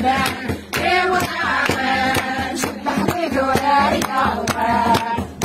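Several voices singing a chant together over a steady percussive beat.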